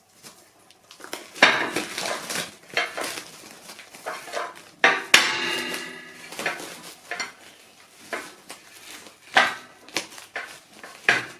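Dishes clattering: plates and bowls knocked and set down in a series of clinks. One knock about five seconds in leaves a short ringing tone.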